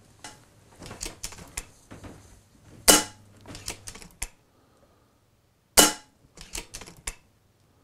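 Side cocking lever of an FX Impact M3 PCP air rifle being worked by hand: light clicks and two sharp metallic clacks about three seconds apart as the lever is pulled back and pushed home.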